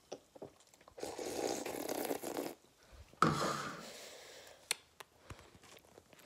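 Noisy sipping from a soda can, then a sudden loud burp a little after three seconds in that fades over a second or so.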